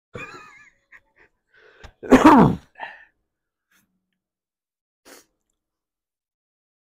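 A person sneezing hard once, about two seconds in, the voice in it falling in pitch; short quieter vocal sounds come before it and a brief breath follows around five seconds.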